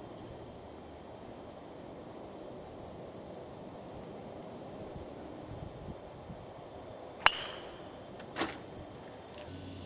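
Golf driver striking a ball off the tee: one sharp, loud crack about seven seconds in with a brief ring after it, followed about a second later by a softer sound. Insects trill steadily throughout.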